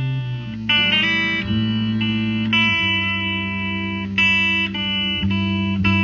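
Instrumental electric guitar music: ringing chords held for about a second each before changing to the next, with no singing.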